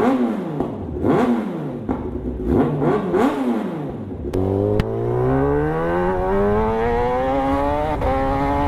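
Kawasaki ZX-10R's inline-four engine revved in sharp blips while standing still, about four quick rev-ups each falling straight back. About four seconds in, the bike is under way and accelerating, its engine pitch rising steadily through a gear, with a shift near the end and a new rise.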